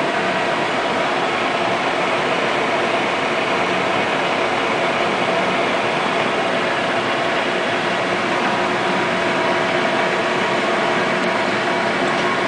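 Metal lathe running steadily under power, a constant mechanical whir with a few steady whining tones from its drive.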